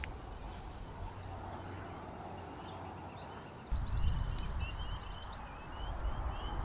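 Distant songbirds chirping, a string of short, repeated rising notes, over open outdoor air. About four seconds in, a low rumble rises on the microphone.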